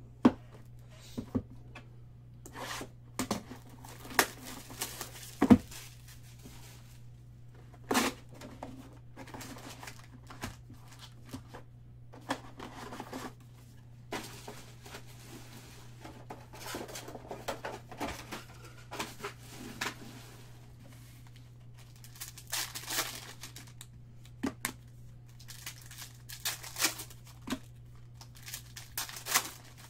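Foil trading-card pack wrappers being torn open and crinkled, in irregular rustling bursts, with sharp clicks and taps as packs and cards are handled on the table.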